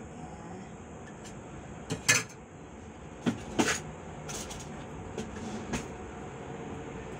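Metal spoon clinking and tapping against plastic and ceramic bowls while sticky emulsifier paste is scraped off it into a cake batter bowl: a handful of short, sharp knocks, the loudest about two seconds in.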